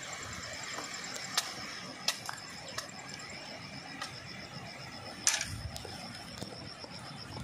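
Dry split bamboo stakes clacking against each other as one is pulled from a pile and carried, a handful of sharp knocks with the loudest about five seconds in, over a steady high pulsing insect trill.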